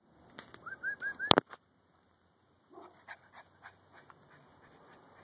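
Small dog whining in four quick, short rising squeaks, followed by a single sharp knock, the loudest sound, about a second and a half in; a few faint ticks after that.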